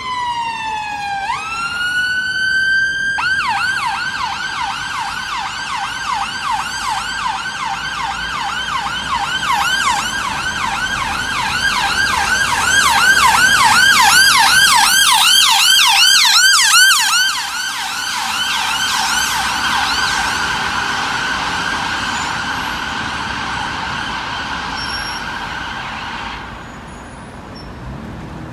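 Ambulance siren sounding a slow wail, falling then rising, then switching about three seconds in to a rapid yelp. The yelp grows louder as the ambulance passes, fades, and cuts off a couple of seconds before the end.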